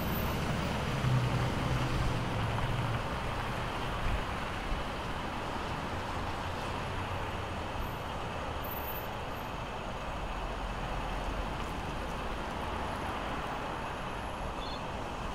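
Steady city road traffic noise of passing vehicles, with a louder low engine hum about a second in that lasts a couple of seconds.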